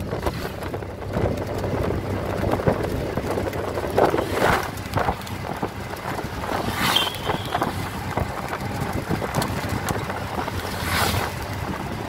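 Road and wind noise from a moving vehicle: a steady low rumble with wind buffeting the microphone, swelling a few times as traffic passes.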